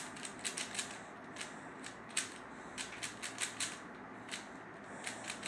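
4×4 plastic puzzle cube being scrambled by hand, its layers turning with short, irregular clicks, about two to three a second.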